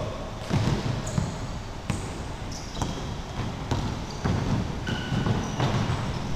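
A basketball bouncing on a wooden gym floor, with sneakers squeaking in short high chirps as players run, in a large gym.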